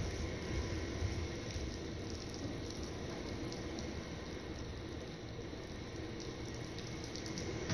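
Steady room noise: a low rumble under a faint hiss, with a few faint ticks.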